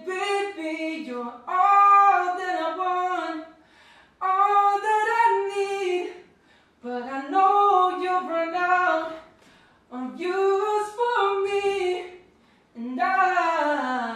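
A man singing unaccompanied in a high register, in five short phrases separated by brief pauses; the last phrase slides down in pitch.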